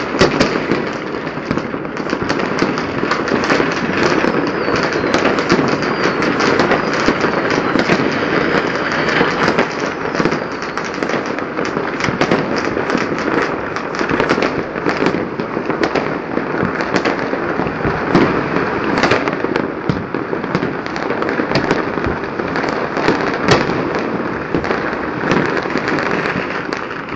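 Chinese New Year firecrackers and fireworks going off all over a city: a dense, unbroken crackle of many bangs a second blending together, with a few louder bangs standing out.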